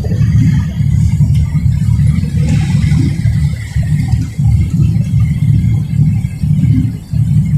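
Tugboat's diesel engines running with a loud, low rumble that wavers and dips briefly a few times.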